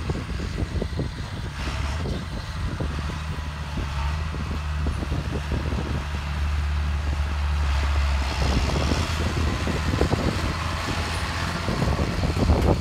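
Farm machinery engine running with a steady low drone, which gives way to a broader, louder noise about eight seconds in.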